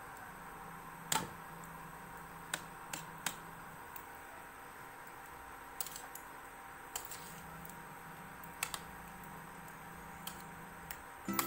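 Scattered light clicks of a spoon tapping and scraping against a bowl while mixing sliced silk squash with egg, over a faint steady hum.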